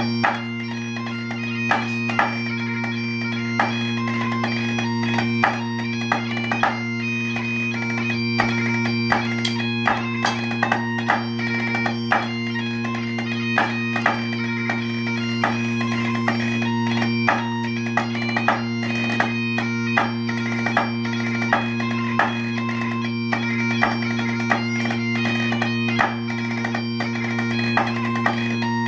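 Great Highland bagpipes playing a tune over their steady drones, with sharp stick taps on a snare drummer's practice pad keeping time and accented strokes about every second.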